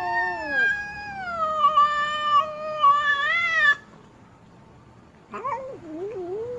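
Female cat yowling: one long, drawn-out wail that sags in pitch and rises again before cutting off a little past halfway, then after a short pause a second, lower, wavering yowl begins near the end.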